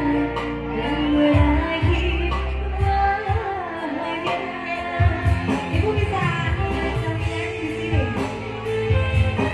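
A woman singing into a microphone over a backing music track, amplified through PA loudspeakers, with strong repeated bass notes.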